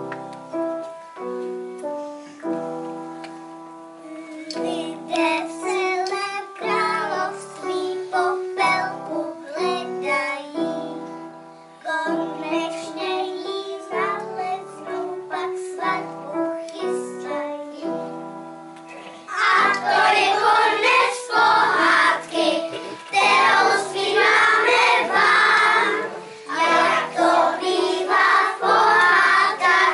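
A group of young children singing a song with piano accompaniment. The singing becomes much louder and fuller about two-thirds of the way in.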